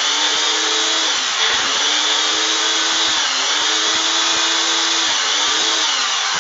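Ninja blender motor running at full speed, chopping a thick mix of almond flour, almond butter, hydrated dates and coconut flakes. The motor's pitch dips and recovers a couple of times.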